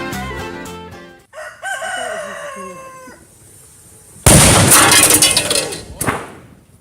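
A rooster crows once, then a sudden loud crash with clattering debris, followed by a second sharp hit near the end. The crash fits a microwave oven being destroyed.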